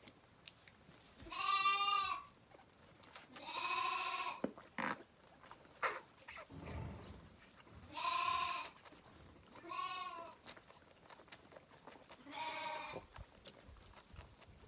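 Zwartbles lambs bleating, five wavering calls of about a second each, a couple of seconds apart, with a few faint knocks in between.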